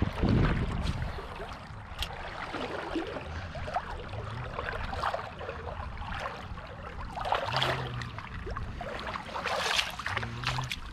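Gumboots sloshing and splashing through shallow water and mud at a river's edge, with louder splashes twice near the end.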